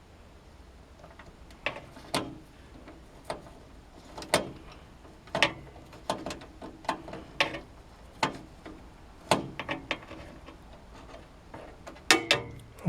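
A screwdriver working a motherboard screw into the PC case: irregular sharp clicks and taps of metal on metal, about one a second, with a quick cluster near the end.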